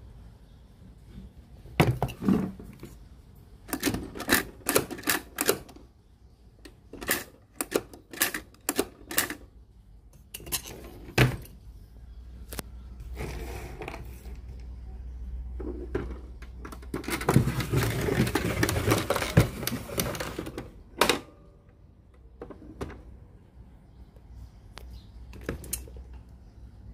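Sharp plastic clicks and knocks from a Sony CFS-1145S cassette radio being handled and worked on, coming in quick runs, with a few seconds of denser clatter and rustling past the middle.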